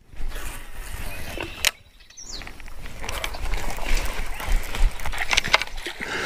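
Wind rumbling on the microphone and rustling, handling noise as a head-mounted camera moves through bankside brush, with scattered clicks. The sound drops out briefly about two seconds in.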